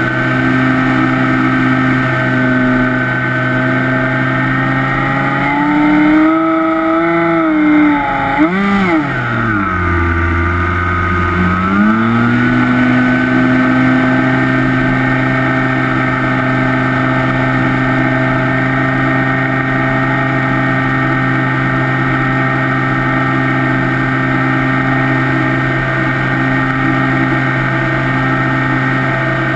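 Electric motor and propeller of a Skywalker FPV plane, heard from the onboard camera, droning at a steady pitch. About a third of the way in, the pitch wavers up and down, drops for a couple of seconds, then climbs back to the steady drone.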